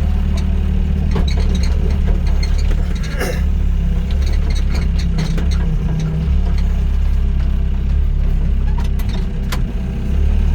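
Doosan DX55 mini excavator's diesel engine running steadily. Scattered knocks and clanks ride over it, the loudest about three seconds in.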